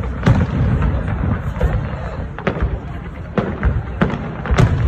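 Aerial fireworks shells bursting in a rapid series of bangs, with crackling in between over a low rumble; one of the loudest bangs comes near the end.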